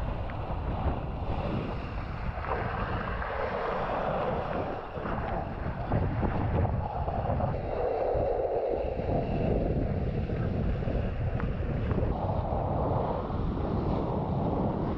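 Wind buffeting an action camera's microphone, rising and falling in gusts, over water rushing and splashing under a kiteboard as it rides across the water.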